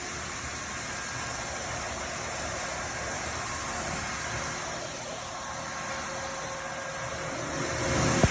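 Bolt-forming machine running, a steady mechanical hum and hiss with no distinct strokes, getting a little louder near the end.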